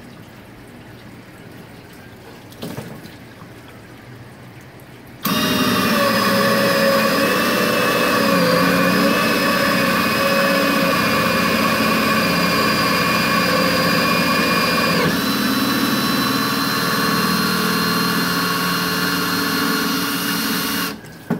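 Cordless drill spinning a reamer at high speed through a valve bore in a 4L60E cast-aluminium transmission valve body: a steady motor whine that starts suddenly about five seconds in, shifts pitch slightly about two-thirds of the way through, and stops abruptly near the end.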